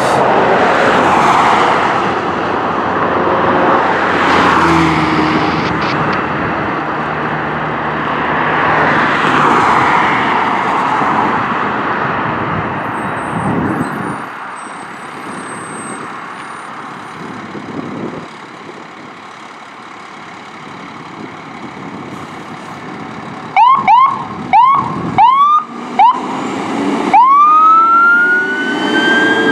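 Fire engine leaving the station on an emergency call: a loud rushing noise swells and fades several times, then the siren gives five quick rising chirps and winds up into a long wail that peaks near the end and starts to fall.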